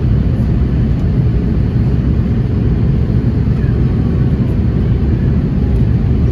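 Steady cabin noise inside an Airbus A330-200 in flight: the deep, even rumble of its General Electric CF6 turbofan engines and rushing airflow, with most of the sound low down.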